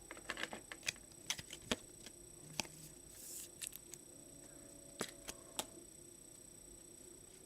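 Faint, irregular light clicks and taps from hands handling small objects, about a dozen over several seconds, with a brief soft rustle about three seconds in.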